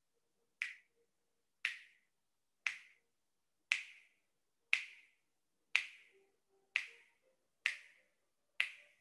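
Nine short, sharp clicks, evenly spaced about once a second, keeping time while the breath is held in a hypopressive apnea.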